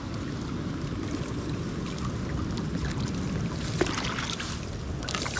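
Steady low rush of flowing river water mixed with wind on the microphone, with a single sharp click nearly four seconds in.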